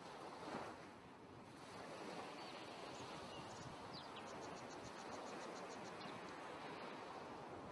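Faint, steady rushing noise from a mixed nature-sound ambience track, with a few scattered high chirps. About halfway through there is a short, rapid trill of high ticks.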